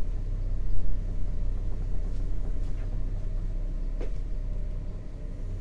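A motor yacht's inboard engine running steadily at low revs, heard as a low hum. A few faint short high chirps sound over it.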